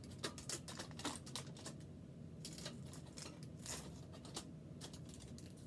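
Aluminum foil over a broiler pan being punctured again and again, an irregular run of sharp crinkling pokes and scrapes.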